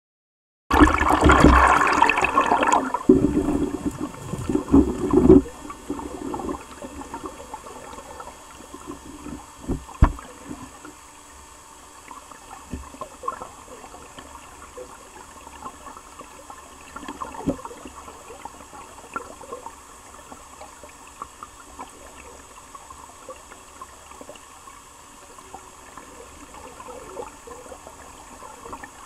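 River water gurgling and splashing: loud for the first few seconds with several surges, then a softer steady rush with scattered small clicks and a couple of sharper knocks.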